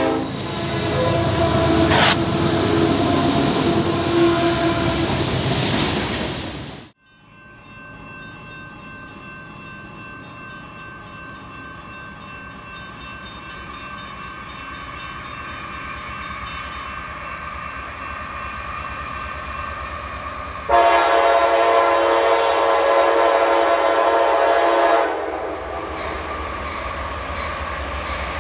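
Diesel locomotives on the line. The first passes close and loud, with the tail of a multi-tone horn chord, and the sound breaks off abruptly about seven seconds in. Another locomotive follows, its engine growing slowly louder as it approaches, and it gives one long horn blast of about four seconds.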